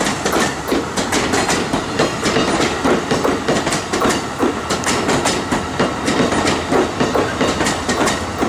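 Amtrak Horizon passenger coaches rolling past at close range: a steady rumble of steel wheels on rail, broken by rapid, irregular clicks as the wheels cross rail joints.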